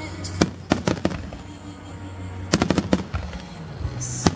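Aerial fireworks shells bursting in a display: a few sharp bangs in the first second, a quick cluster of bursts about two and a half seconds in, and another bang near the end, each trailing off in echo.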